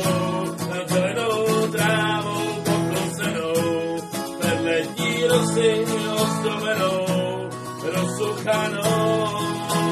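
Acoustic guitar strummed steadily, with a wavering melody line carried over the chords.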